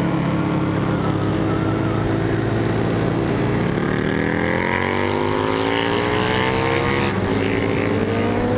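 Motorcycle engine running under load at road speed over rushing wind noise. Its note climbs steadily as it accelerates, drops about seven seconds in as it shifts up a gear, then starts to climb again.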